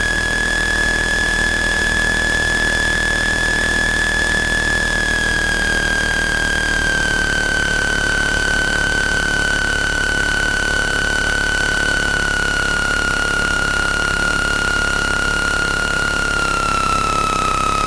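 Cessna 162 Skycatcher's four-cylinder Continental O-200 engine running at taxi power, heard inside the cockpit: a steady engine noise with a high whine on top that slowly sags in pitch and drops lower near the end.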